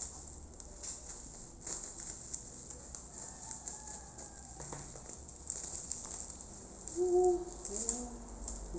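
Plastic packaging crinkling and crackling as it is cut with scissors and pulled apart by hand. A few short pitched sounds come through near the end.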